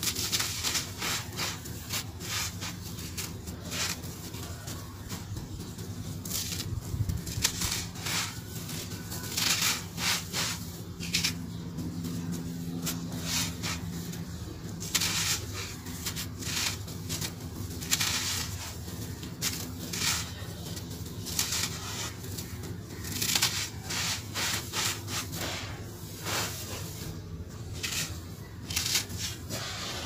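Dry sand-cement mix crumbled between the fingers and poured back onto a heap of powder: irregular gritty crunching and hissing trickles, with louder crunches every second or two as handfuls are squeezed and broken apart.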